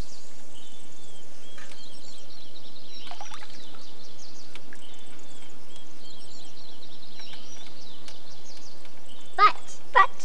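Birds chirping over a steady background hiss. Two short, louder, wavering cries come about half a second apart near the end.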